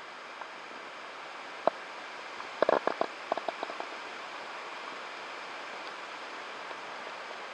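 Steady hiss of flowing river water, with a single click and then a short run of quick, fading ticks about three seconds in.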